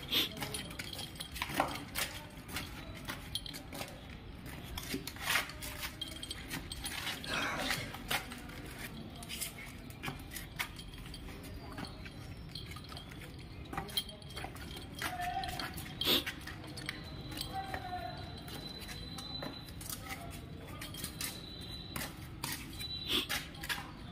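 A street dog moving about on concrete and mouthing a plastic strip: scattered clicks, scrapes and knocks, with two brief wavering sounds about fifteen and seventeen seconds in.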